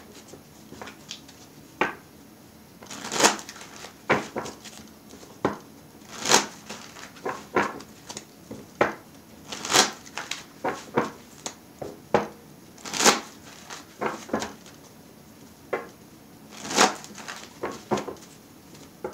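A deck of tarot cards being shuffled by hand: a string of short card swishes and taps at uneven intervals, the louder ones coming about every three seconds.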